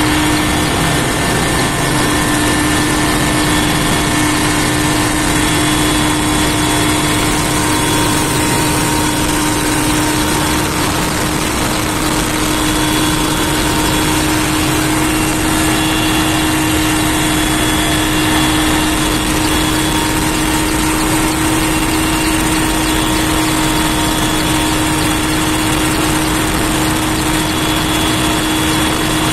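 Helicopter in flight heard from inside the cabin: a loud, steady engine and rotor drone with a few constant tones running through it.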